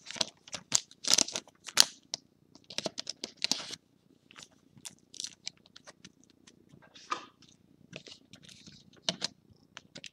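Clear plastic card sleeve and rigid toploader rustling, crinkling and clicking as a trading card is handled and sleeved. The crinkles and clicks come irregularly, loudest in the first two seconds and again around three and a half seconds in.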